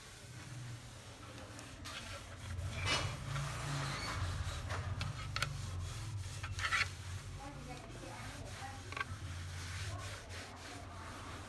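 A cloth rubbing and wiping across the laminated table of a homemade jigsaw in uneven strokes, over a low steady hum.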